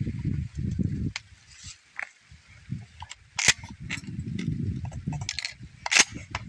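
Mossberg Maverick 88 12-gauge pump-action shotgun being handled: a few sharp metallic clacks, the loudest about three and a half and six seconds in, as the forend and action are worked, over low rumbling handling noise.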